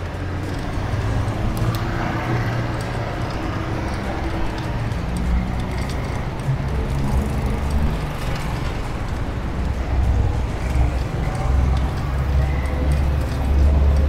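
Road traffic heard from a moving bicycle: cars, motorcycles and trucks running close by, with a steady low rumble that grows louder near the end.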